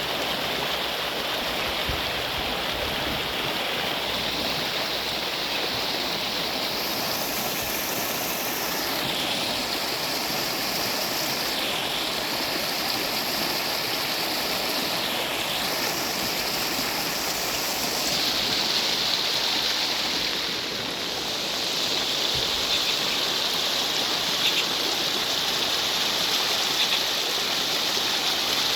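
Steady rush of water in heavy rain, a continuous hiss whose tone shifts several times and dips briefly about two-thirds of the way through.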